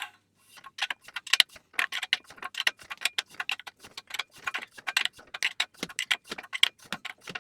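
Irregular light metallic clicks and ticks, several a second, from a hand-held bottom bracket tool turning an Italian-thread bottom bracket cup into a steel frame's shell.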